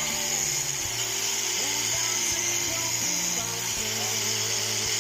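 Background music with shifting low notes, over a steady high-pitched whine typical of a small electric rotary tool or drill.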